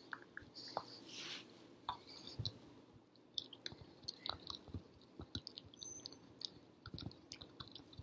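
A pug gnawing on a hard chew, its teeth making irregular small clicks and scrapes against it, with wet mouth sounds in between.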